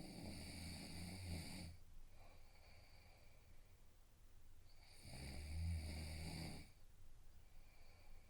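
A sleeping man snoring: two snores about five seconds apart, each lasting under two seconds, with a fainter breath after each.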